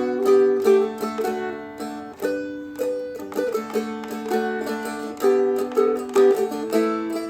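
Seagull Merlin M4, a four-string dulcimer-style instrument, being flatpicked: a country melody picked on the melody string while the other strings ring on as steady drones.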